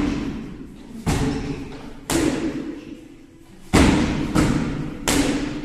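Boxing gloves striking hand-held pads in pad work: a series of sharp smacks, each with a short echo. Two come about a second apart, then a quicker run of three near the end.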